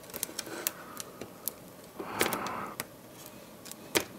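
Pry tool working under a tablet battery held down by adhesive: scattered small clicks and taps, a short scraping rub about two seconds in, and a sharper click near the end.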